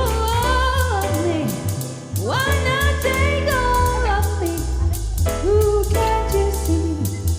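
Background music: a song with a singing voice gliding between notes over a steady, heavy bass beat and drums.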